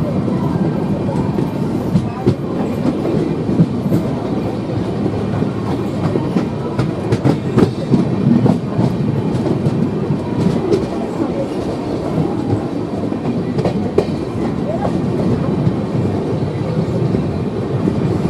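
Express passenger train coaches running at speed, heard from on board: a steady rush of wheels and wind with an irregular clickety-clack of wheels over the rails.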